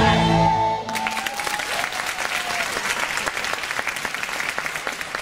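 The dance music ends abruptly about a second in, and an audience breaks into sustained applause.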